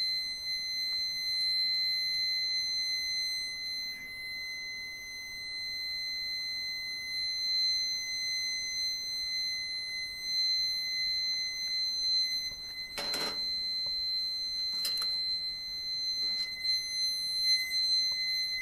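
Maverick wireless barbecue thermometer's alarm sounding, heard as a steady high-pitched electronic tone that doesn't let up. Two sharp clunks come in the second half.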